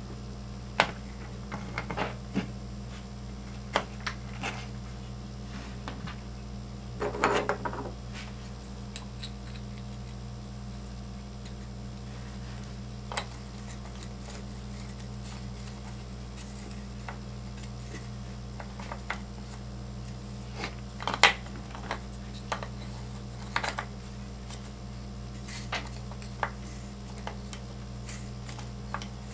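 Scattered small clicks, knocks and rubbing as hands handle and fit an RC monster truck's wheel and tyre on a workbench, with a brief rustle about a quarter of the way in and a sharper click past the middle, over a steady low hum.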